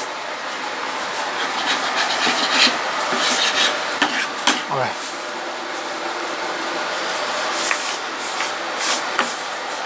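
Hand sanding wood: sandpaper rubbed back and forth over the wood in quick repeated strokes, a continuous scratchy rasp.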